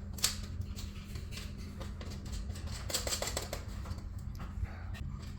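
Light clicks and taps of small parts being handled: one sharp click about a quarter second in, and a quick run of several ticks about three seconds in, over a steady low hum.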